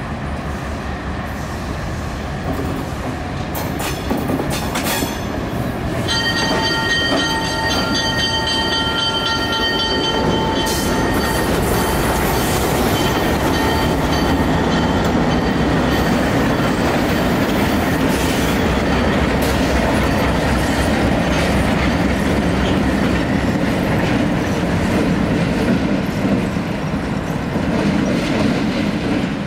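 Diesel freight train passing close by. The locomotive sounds its air horn in one chord lasting several seconds, starting about a fifth of the way in. Engine rumble and the clickety-clack of the freight cars' wheels continue throughout.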